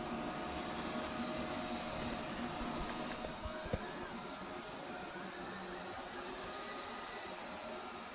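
Vorwerk VR100 robot vacuum (a rebadged Neato XV11) running while it cleans: a steady suction-motor and brush noise with a thin high whine. One short knock comes a little before four seconds in.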